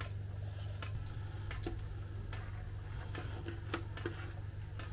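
Steady low hum with a handful of small, sharp clicks and knocks, a few per second at most, from a metal roasting tray and a plastic jug being handled.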